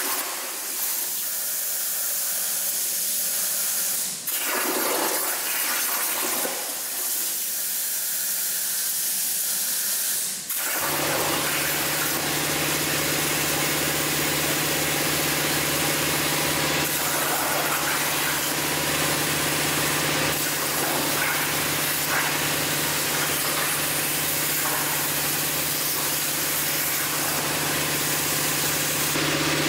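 CNC plasma torch cutting 16-gauge mild steel at 45 amps over a water table: a loud steady hiss that breaks off briefly twice as one cut ends and the next begins. About 11 s in, a steady low machine hum joins under the hiss and runs on.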